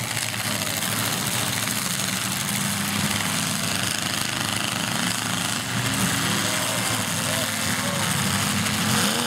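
Engines of several demolition derby cars running and revving together, their pitch shifting up and down, over a steady broad din.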